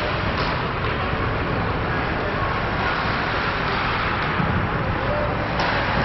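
Indoor ice hockey rink ambience during a youth game: a steady wash of noise with indistinct voices, and one sharper knock near the end.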